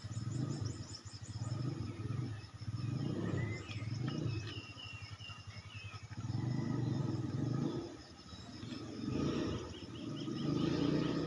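Low rough swells of noise, each a second or two long, with birds chirping in short quick series high above them, near the start, in the middle and near the end.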